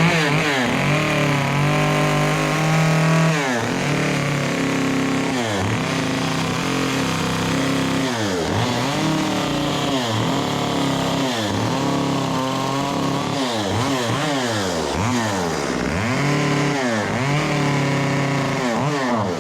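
Chainsaw cutting into a carved pumpkin's stem to thin it out. The engine starts up loud, holds high revs for a few seconds, then repeatedly drops in pitch and climbs back every second or two as the throttle and cuts come and go. It dies away at the very end.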